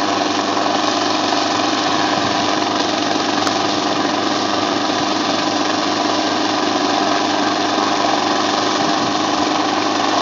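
Small helicopter hovering low overhead, its engine and rotor running with a steady, unbroken hum.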